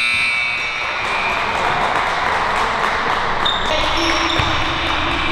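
Basketball game in a gymnasium: a basketball bouncing on the hardwood floor over a steady wash of gym noise, with brief voices calling out around three and a half to five seconds in.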